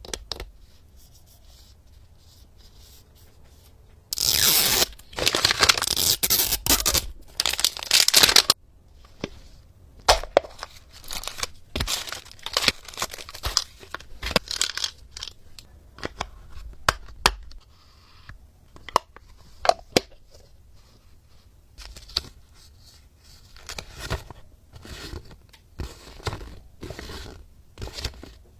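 Plastic toy packaging torn open in a loud stretch of tearing that lasts about four seconds, followed by scattered sharp clicks, taps and crinkles as the plastic pieces are handled.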